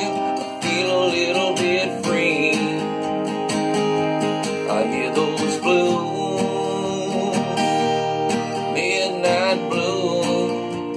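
Capoed steel-string acoustic guitar strummed steadily in a blues chord pattern, with a man's voice crooning along wordlessly at times.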